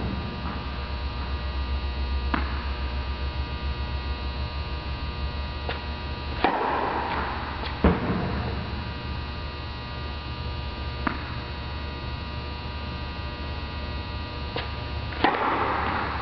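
Steady electrical mains hum with many evenly spaced overtones. A few sharp knocks fall several seconds apart, and there are brief rushes of noise about six and a half seconds in and again near the end.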